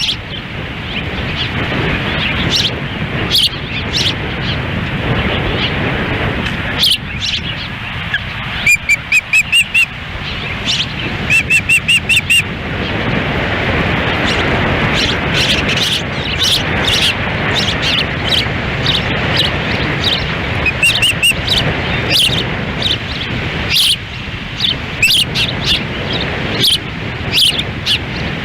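Ospreys chirping in runs of short, repeated whistled calls, over steady wind noise buffeting the microphone.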